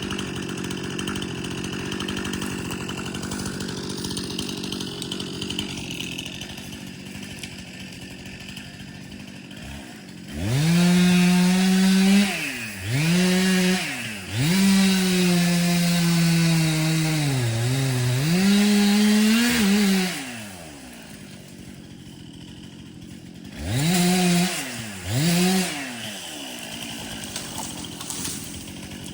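Two-stroke chainsaw idling, then run up to full throttle about ten seconds in and held for about ten seconds with two short let-offs, its pitch sagging under load as the chain cuts into the bitternut hickory trunk. It drops back to idle, then is blipped twice near the end.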